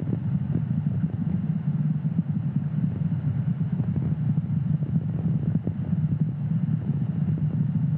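Steady low rumble of a Falcon 9 rocket's first stage, nine Merlin 1D engines firing during ascent, heard from a long way off.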